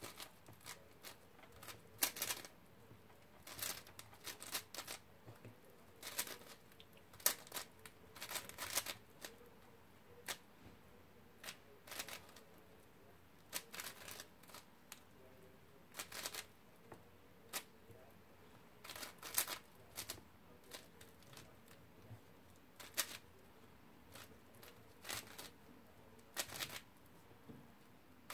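Qiyi Wushuang 5x5 speedcube being turned fast in the hands, its layers clicking and clacking in quick irregular bursts with short pauses between.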